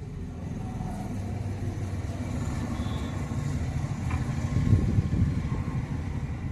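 Low rumble of a motor vehicle engine, growing louder to a peak about five seconds in and then easing off.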